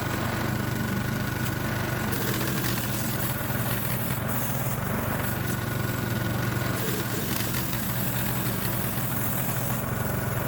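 Engine of a Harbor Freight portable bandsaw mill running steadily while slabbing an oak log.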